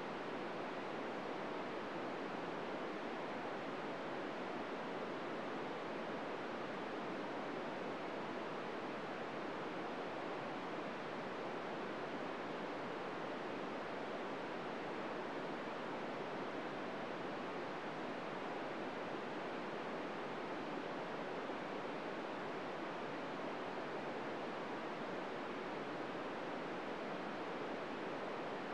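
Steady hiss of an FM receiver tuned to the ISS SSTV downlink on 145.800 MHz with the squelch open and no signal yet, only noise.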